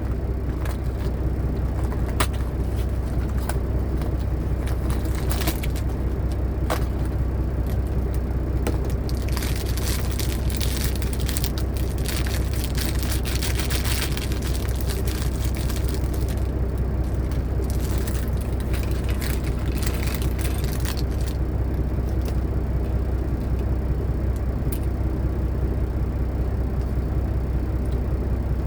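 Steady low diesel-engine rumble played as a white-noise background. From about nine seconds in to about twenty-one seconds there are many light clicks and crinkles from packaging and small plastic parts being handled, with scattered clicks before and after.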